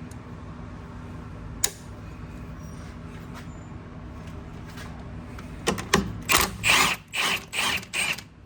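Hand ratchet wrench being worked in quick strokes, about seven loud ratcheting bursts in the last few seconds, loosening a drop link nut. One sharp click comes a couple of seconds earlier, over a steady low hum.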